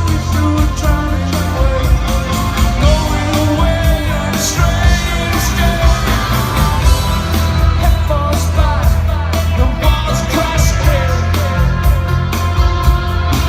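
Rock band playing live, with lead vocals over a heavy bass line, guitars and a steady drum beat.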